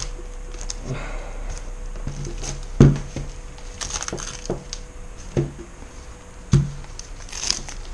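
Spray-painted tape being peeled and torn off a gel blaster rifle by gloved hands, the tape crackling and ripping, with about four sharp knocks as the blaster is handled.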